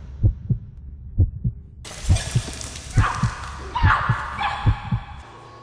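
Heartbeat sound effect: paired low thumps, lub-dub, repeating a little under once a second. A hiss joins the beat about two seconds in.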